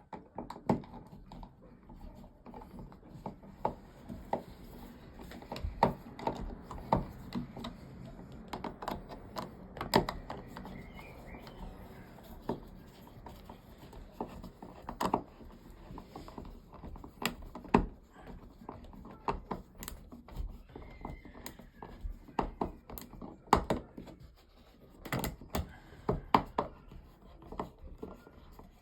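Plastic car dashboard parts handled and pressed back into place by hand: irregular clicks and knocks, a few at a time, throughout.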